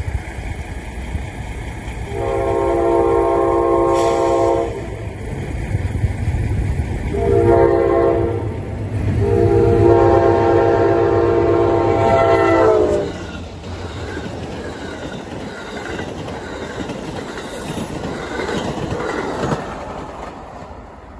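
Amtrak GE P42DC diesel locomotive sounding its air horn for the grade crossing: a long blast, a short one and a long one that drops in pitch at its end as the engine passes, over the low rumble of the diesel. Then the passenger cars roll by with wheels clattering on the rails, fading near the end.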